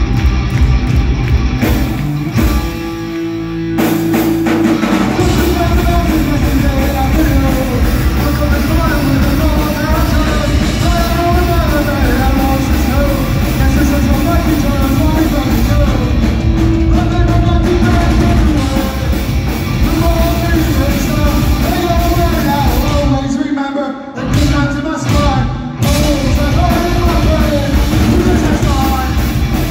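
Live rock band playing loudly, with singing over guitars and drums. The band drops out briefly about three seconds in and twice more around three-quarters of the way through.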